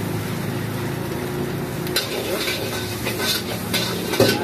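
Chowmein noodles and cabbage sizzling in a hot wok over a gas burner, with a steady low hum underneath. From about two seconds in, a metal spatula scrapes and knocks against the wok in quick strokes, the loudest near the end.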